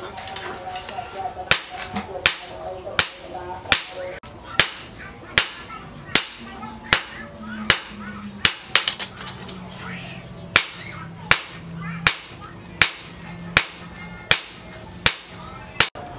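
Hand hammer striking red-hot leaf-spring steel on a round steel anvil block: about twenty sharp blows at a steady pace of roughly one every three-quarters of a second, shaping the hot cleaver blade.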